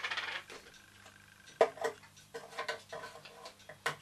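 Irregular light clicks and knocks of a plastic water bottle, its cap and a syringe being handled on a wooden bench, with a sharper knock near the start, another about a second and a half in, and one near the end. A faint steady hum runs underneath.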